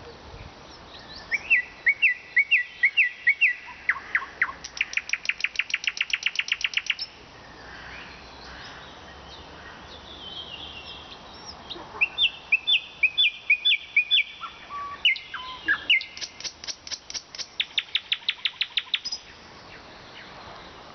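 A nightingale singing: two song phrases a few seconds apart, each opening with repeated sharp whistled notes and ending in a fast rattling run of loud clicks, about eight a second.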